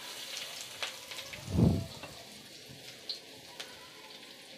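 Sliced shallots and freshly added chopped garlic frying in hot oil in a wok, a soft crackling sizzle. A single dull thump sounds about a second and a half in.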